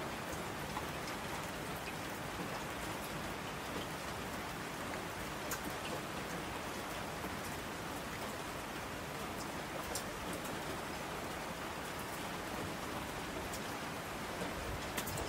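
Steady rain falling, with a few sharper drop ticks standing out now and then.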